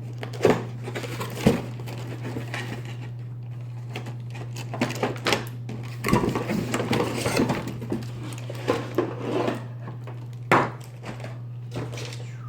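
A cardboard box and its packaging being opened and handled, with scattered knocks and clatter and a busier stretch of rustling and rattling about halfway through, over a steady low hum.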